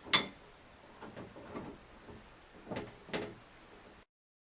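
Metal clacks of gear-puller parts being handled and fitted: a sharp click with a short metallic ring at the start, a few faint knocks, and two more clacks about three seconds in. The sound then cuts to silence.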